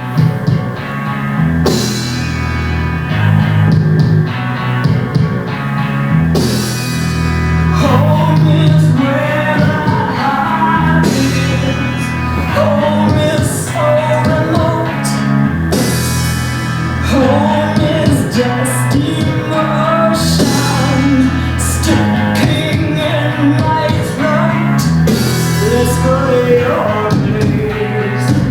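Rock song with guitar, bass, drums and singing, played from a vinyl record on a turntable through a studio sound system.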